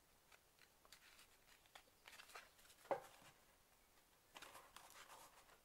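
Faint handling of a small card-covered paper book: soft rustles of paper and card with light ticks as the covers are pressed together, and one sharper tap about three seconds in.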